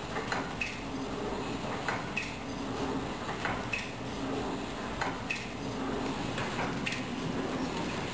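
Packmate C350-HL flow wrapper running, with a steady machine hum and a pair of sharp metallic clacks repeating about every second and a half as it wraps and seals pillow packs.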